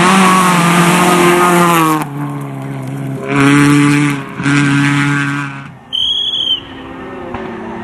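Rally car engines at full throttle on a gravel stage, revving up and dropping back in several loud bursts as the cars shift and lift past. A brief high tone sounds about six seconds in.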